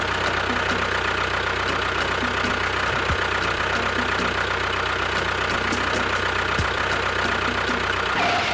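A small motor running steadily at a constant speed, cutting off abruptly near the end.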